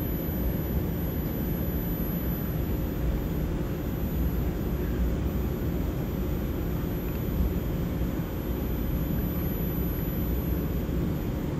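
EMU900 electric multiple unit standing at the platform, its onboard equipment giving a steady low hum with a couple of faint constant tones.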